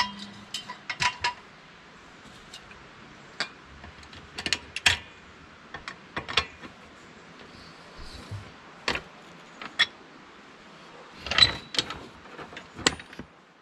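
Scattered metallic clicks and clanks from a hydraulic floor jack and its steel handle being handled under an ATV's rear axle, with a short run of knocks near the end.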